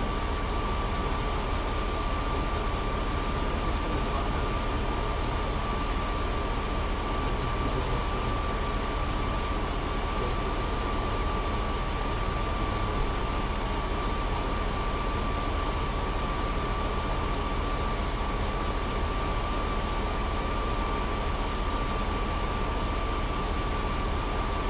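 Truck engine idling steadily, with a thin steady whine held above the engine note.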